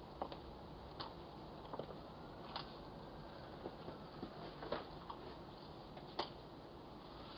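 Faint background hiss with a few irregular, sharp little clicks and taps, the sharpest about six seconds in.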